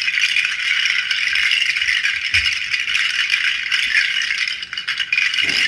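Smaller strands of a seed pod rattle, hard dried pods strung on braided cord, shaken continuously in both hands: a dense, steady clatter of pods knocking together, with a brief lull near the end.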